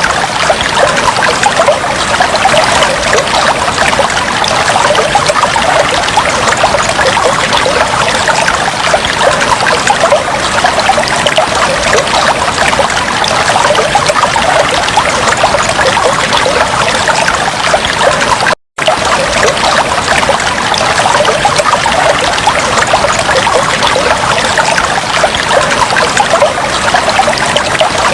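Aquarium water trickling and bubbling steadily, a dense stream of small splashes and bubbles. It cuts out for a split second about two-thirds of the way through.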